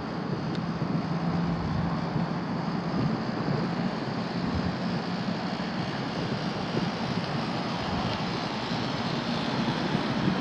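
Rooftop HVAC units running: a steady rushing drone with a low hum underneath.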